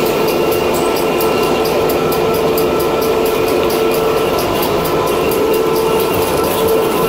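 Chairlift drive motor running at steady speed: a constant whine of several held tones, with a fast, even ticking of about four a second over it.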